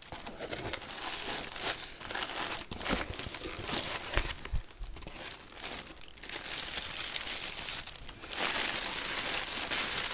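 Plastic air-pillow packing crinkling and rustling as hands rummage through it in a cardboard box. The crinkling grows louder and denser near the end.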